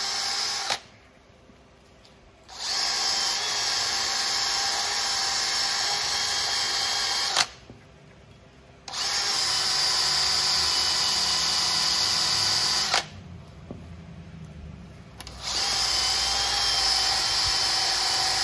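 Cordless brushless drill spinning a wire wheel brush against the corroded face of a Mazda RX-8 front wheel hub, scrubbing the rust and grime off the metal. It runs in steady stretches of a few seconds, stopping briefly about a second in, at about seven seconds and at about thirteen seconds.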